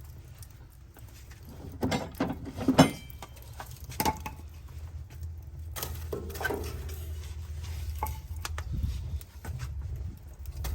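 Split logs knocking and clanking against the steel firebox of an offset smoker as they are loaded onto the fire, a few separate sharp knocks about two, three, four and six seconds in, over a steady low rumble.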